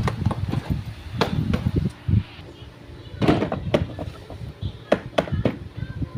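Irregular knocks, clicks and low thuds of objects being handled, with a cluster of sharper clicks from about three to five and a half seconds in.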